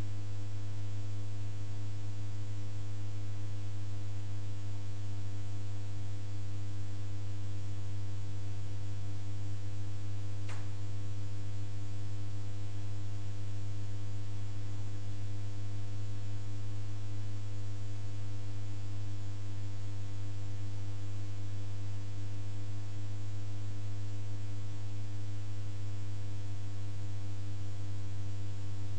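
Steady electrical hum with hiss, a low buzz with many fainter overtones that does not change. A faint click sounds about ten seconds in.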